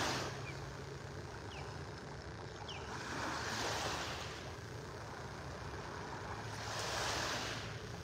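Small waves washing onto the sand. The hiss swells twice, around three to four seconds in and again near seven seconds, over a faint steady low hum.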